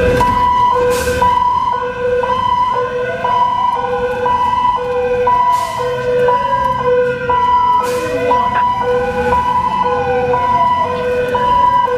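Fire engine sirens on an emergency run, heard from inside the cab: a high-low two-tone switching back and forth at a steady pace, with a slower wail rising and falling over it and the engine running underneath.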